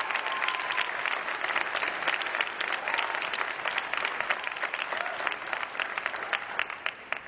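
Audience applauding after a stage performance, dense clapping that thins out near the end.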